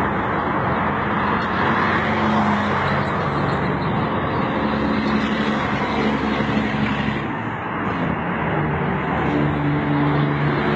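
An engine running steadily, a low hum under dense noise, its pitch shifting a little over halfway through.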